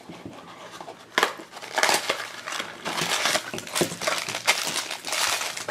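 Crinkling and crackling of a shiny foil blind-box bag being handled and torn open, a sharp crack about a second in, then dense crackling from about two seconds in.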